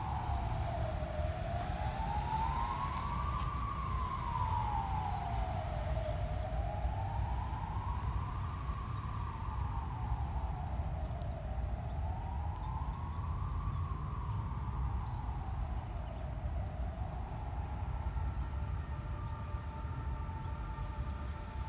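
Emergency vehicle siren wailing, its pitch rising and falling slowly about every five seconds, four times, then fading. A steadier tone follows near the end, all over a steady low rumble.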